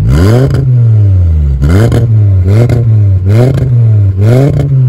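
Volkswagen Jetta MK5 2.5 inline-five engine revved repeatedly while standing still, about five quick throttle blips that each rise and fall back toward idle. The note comes through a modified exhaust with a muffler removed or swapped.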